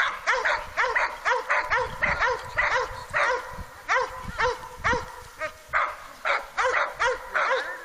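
A dog barking in a rapid, even series of short yaps, about three a second.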